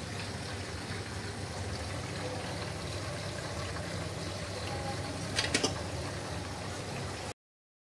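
Steady background room noise: a low hum with hiss. A few quick clicks come about five and a half seconds in, and the sound cuts off suddenly near the end.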